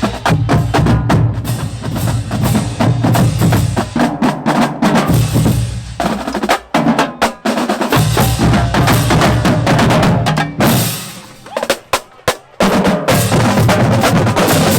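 Marching drumline playing a cadence: rapid snare and tenor drum strokes over bass drums, with stick clicks. It cuts out briefly around the middle and again near the end, then comes back in with full hits.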